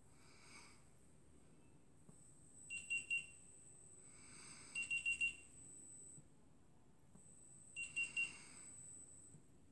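Faint electronic beeps from a smartphone in use: three clusters of three or four short, quick high beeps, a couple of seconds apart.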